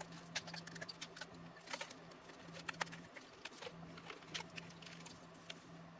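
Faint, irregular clicks and scrapes of a tire lever prying around the crimped aluminum bezel ring of a speedometer, over a low steady hum.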